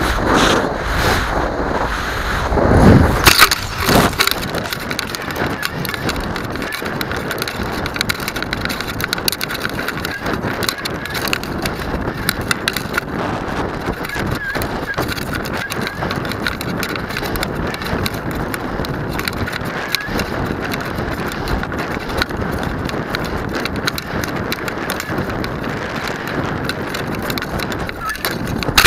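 Wind rushing over the microphone of a camera on a high-power model rocket coming down under its parachute, thick with constant crackling and rattling. The first few seconds are louder and lower, with heavier gusts, before it settles into a steady rush.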